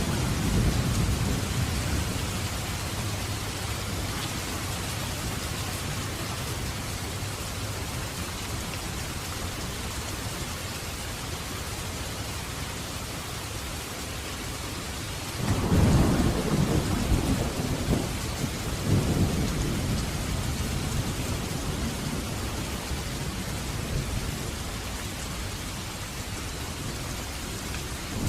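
Heavy rain falling in a steady, dense hiss, with thunder rumbling low: faintly at first, then a louder roll of several pulses about halfway through that fades over a few seconds.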